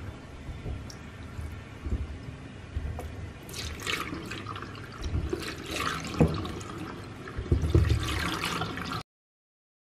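Fruits being dropped and set into a plastic bowl of water, with repeated splashes and low knocks against the bowl starting about three and a half seconds in. The sound cuts off abruptly near the end.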